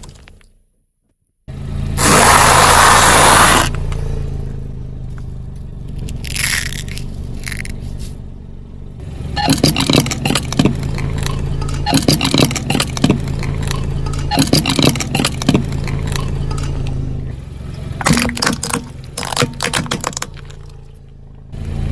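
Car tyre rolling slowly over plastic mesh pencil cups, crushing them with clusters of sharp crackling and snapping through the middle of the clip, over a steady low engine hum. A loud rushing burst comes near the start.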